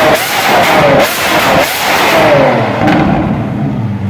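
Lamborghini Aventador LP700-4's naturally aspirated V12 through a Fi Exhaust valvetronic catback, revved in quick repeated throttle blips that rise and fall about every half second. About three seconds in it drops back to a steady idle.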